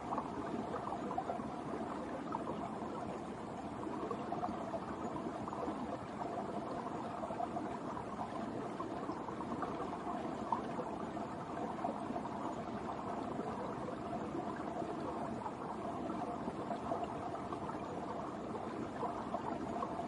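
A winter brook running under ice: steady, unbroken flowing water with many small uneven flickers of sound throughout.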